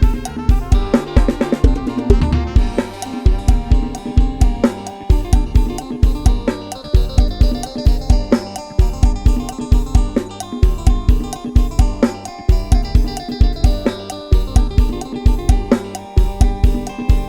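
Isan lam sing instrumental music, 'lai hae' pattern: a sampled drum kit of kick, snare and cymbals with bass guitar keeps a steady driving beat under a melody line.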